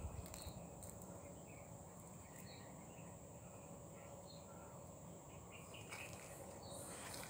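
Faint outdoor ambience: a steady high-pitched insect drone, with scattered short bird chirps.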